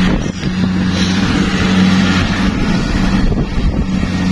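Rice combine harvester running steadily, its engine giving a constant low hum under a wash of mechanical noise.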